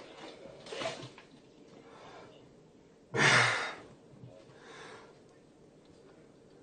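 A man breathing hard and gasping, catching his breath after chugging a can of beer. A single loud breath about three seconds in, with fainter breaths before and after.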